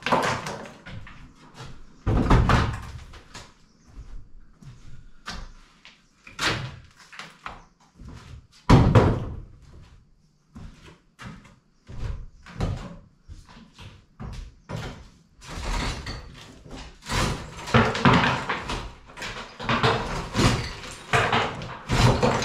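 Irregular knocks, thuds and clatter of interior wall demolition: a long steel bar, loose boards and rubble striking and dropping onto wooden floorboards. Heavy hits come about two seconds and nine seconds in, and a denser run of clatter comes in the last third.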